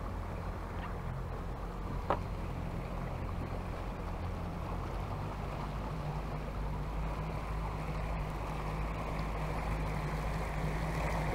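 Steady low drone of a small boat's motor with water wash and some wind on the microphone, one short sharp tick about two seconds in.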